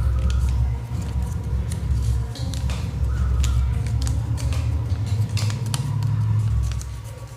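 A sheet of paper being folded and creased by hand, with short irregular crinkling clicks over a steady low rumble.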